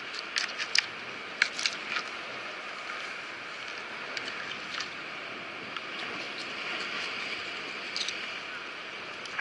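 Sea water washing over shore rocks in a steady hiss, with scattered short clicks and taps from a knife cutting a fish on a plastic cutting board, several in the first two seconds and a few more later.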